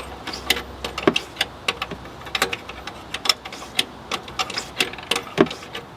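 Hand ratchet clicking in quick, uneven strokes as a rusty bolt is backed out, the bolt now turning.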